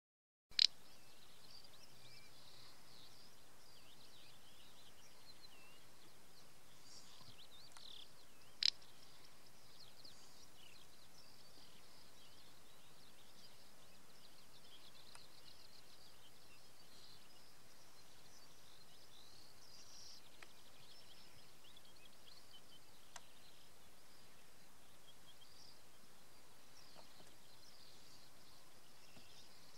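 Faint, constant twittering and chirping of small birds, broken twice, about eight seconds apart, by a short, sharp dry call, the 'prrt' snort of a displaying male little bustard.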